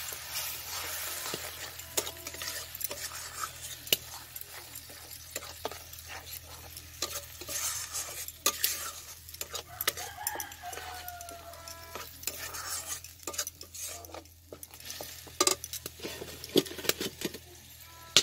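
A metal spatula stirring and scraping a thick ground-tomato masala paste as it fries in a metal kadai. A steady sizzle runs under frequent sharp scrapes and clinks of the spatula against the pan.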